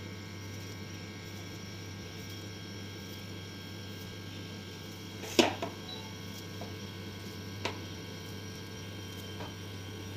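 Steady low electrical hum in a small room, with one sharp knock a little over five seconds in and a couple of fainter ticks later, while dough pieces are pinched off and set down on a wooden board.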